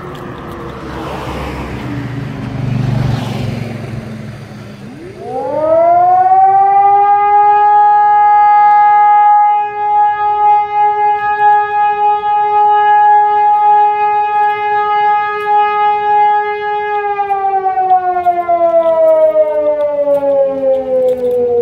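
Fire brigade alarm siren sounding the callout. It winds down at first, then spins up fast about five seconds in to a steady loud wail held for about twelve seconds, and slowly falls in pitch near the end.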